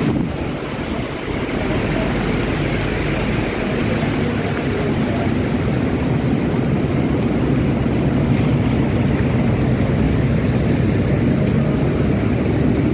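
A steady low rumble with hiss, dipping slightly about a second in, with no distinct events.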